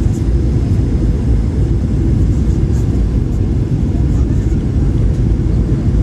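Steady, loud low rumble of a Boeing 737-800's CFM56 engines and airframe heard inside the cabin, with a faint steady hum above it.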